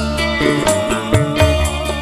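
Live campursari koplo band playing an instrumental intro: a wavering keyboard lead melody over bass, with high percussion ticking in a steady quick rhythm.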